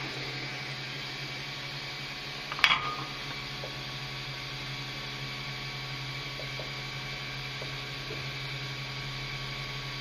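Steady low electrical hum with a faint hiss, and one short sharp click about two and a half seconds in.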